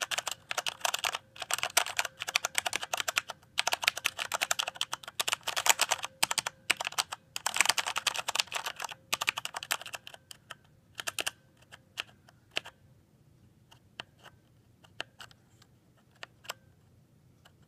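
Typing on a Corsair K95 RGB mechanical keyboard with Cherry MX Brown switches, recorded through a phone microphone. Fast, dense keystrokes for about the first half, then thinning to scattered single key presses, stopping shortly before the end.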